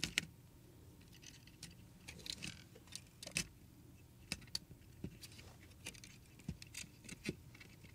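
Faint, irregular clicks and light taps of small tools and parts being handled while working on a camera's internals.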